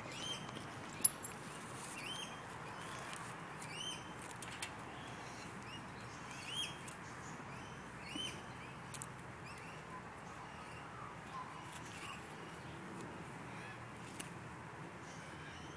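A bird chirping: short, high, arched notes repeated every second or two, fading out after the first half, with a few sharp clicks, the loudest about a second in.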